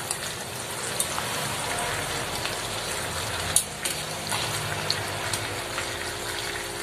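Chicken pieces frying in melted butter in a pan, browning: a steady sizzle with scattered pops and crackles. A few sharp clicks of metal tongs against the pan as the pieces are turned.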